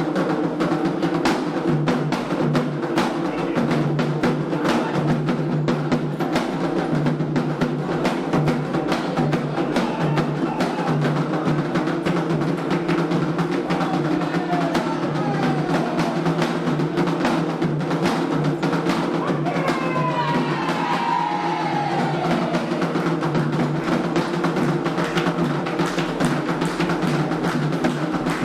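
Candomblé ritual hand drumming on atabaques: a fast, steady, continuous beat. Two falling, sliding high sounds come over it about halfway through.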